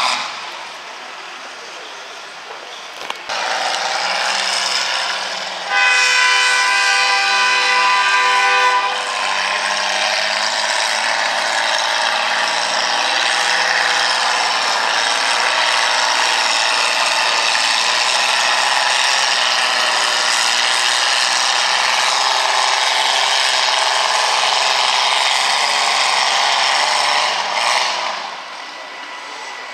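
Farm pulling tractor's engine at full throttle dragging a weight-transfer sled, a loud steady run of about twenty seconds that stops near the end. Just before the run, a steady pitched, horn-like tone sounds for about three seconds.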